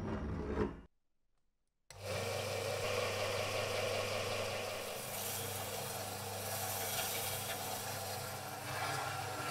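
A brief sound is cut off and followed by about a second of silence. Then a bench combination belt-and-disc sander runs steadily, a low motor hum under the hiss of the moving abrasive belt.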